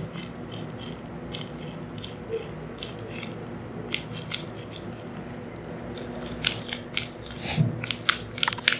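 Origami paper squishy stuffed with a crumpled plastic bag, squeezed by hand: short crinkling crackles, scattered at first and coming thicker and louder in the last few seconds.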